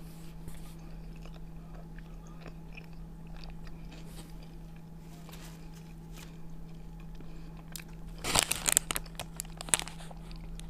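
Close-up chewing of a shawarma wrapped in grilled lavash, with small wet mouth clicks, then a loud crunchy bite about eight seconds in and a single sharp click just before the end.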